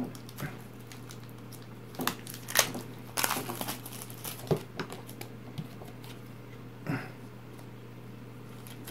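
Plastic shrink-wrap on a pack of game cards being picked open and pulled off, giving short, scattered crinkles and crackles, busiest a couple of seconds in, with the cards clicking as they are handled. A steady low hum runs underneath.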